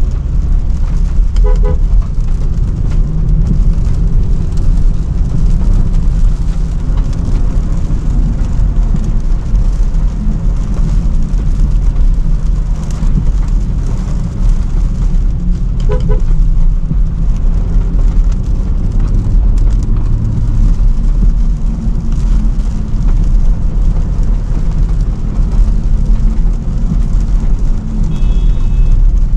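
Range Rover Sport driving, a steady low rumble of engine and road noise. A short two-note car horn sounds about a second and a half in and again about sixteen seconds in.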